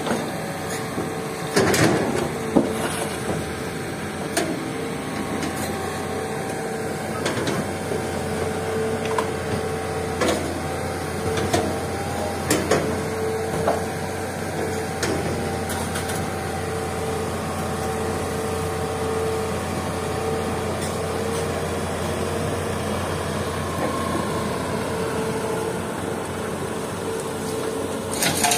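Diesel engines of a hydraulic excavator and a dump truck running steadily, with a steady whine over a low hum. Scattered clunks and knocks, mostly in the first half, as rock and earth are loaded into the truck's steel bed.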